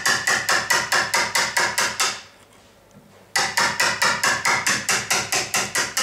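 Rapid light hammer taps on a wood chisel, about five a second, chiselling a shallow rebate into the timber edge of a door. The tapping stops about two seconds in and starts again a second later.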